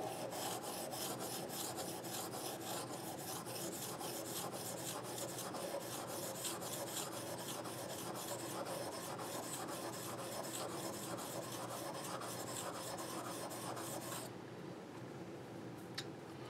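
Steel scratch-stock cutter blade rubbed back and forth on an oiled Washita oilstone in quick, even strokes, honing off the burr left by filing. The strokes stop about two seconds before the end, followed by a single light click.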